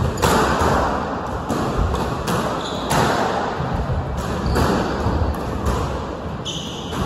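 Squash ball struck by rackets and smacking off the court walls and floor during a rally: sharp knocks roughly once a second, ringing in the hall. Short high squeaks of court shoes on the wooden floor come twice, a bit before halfway and near the end.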